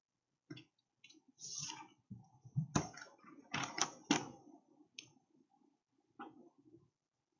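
Scattered clicks and knocks of objects being handled at a desk, with a short rustle about a second and a half in and the loudest cluster of clicks around three to four seconds in.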